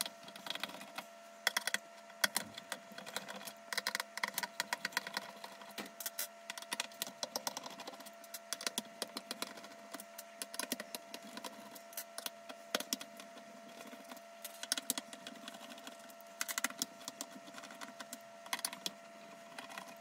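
Rapid, irregular small clicks and ticks of a screwdriver backing screws out of a plastic car centre console, with plastic wiring clips and connectors being worked loose. A faint steady tone runs underneath.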